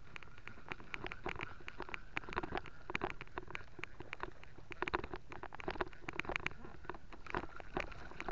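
Rapid, irregular clicking and tapping from a fishing reel and rod being worked while reeling in a hooked fish from a kayak.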